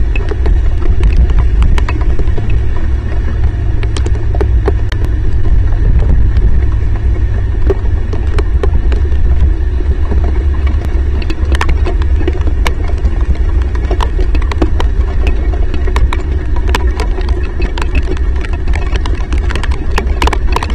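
Heavy rain on an outdoor camera microphone: a loud, steady low rumble with many scattered sharp ticks of drops striking the camera housing.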